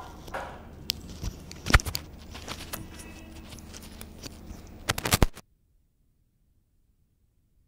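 Low steady room hum with scattered clicks and knocks, loudest a little under two seconds in and in a quick cluster about five seconds in. Then the sound cuts off to dead digital silence.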